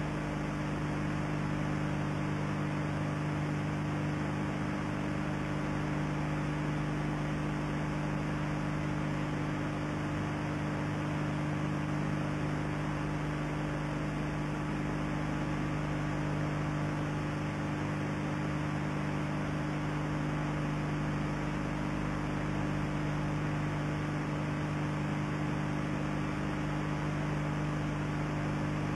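Steady electrical hum with constant hiss on an old videotape soundtrack, unchanging throughout, with no footsteps or other sounds from the performance heard above it.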